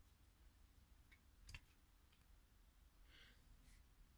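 Near silence, with a few faint small clicks, the clearest about a second and a half in, as the Gat air pistol's screw-in breech plunger is handled during reloading.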